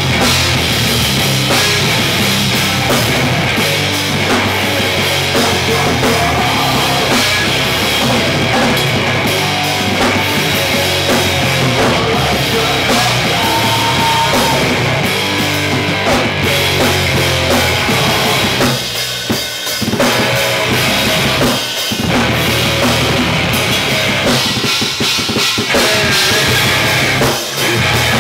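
Live hardcore punk band playing loud: electric guitars and a drum kit, with a singer shouting into the microphone. The band cuts out for brief breaks about two-thirds of the way through and again just before the end.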